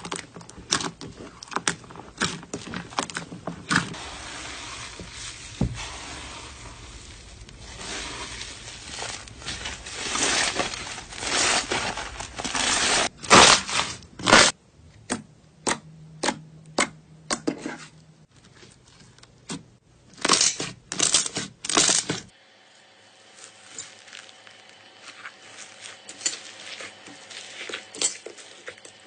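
Slime being squeezed, stretched and poked by hand, with many sticky clicks, pops and crackles. The sound changes abruptly about two-thirds of the way through, to softer, sparser clicks.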